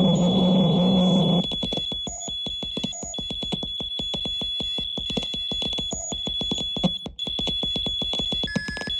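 Electronic noise music played live: a dense low drone with a strong hum stops abruptly about a second and a half in. It gives way to rapid crackling clicks under a high, alarm-like whistling tone that cuts in and out.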